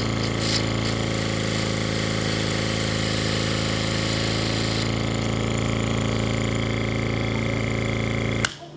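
Small 12-volt oil-less diaphragm compressor running steadily with a strong even hum, a hiss over it for the first few seconds; it cuts off abruptly with a click near the end.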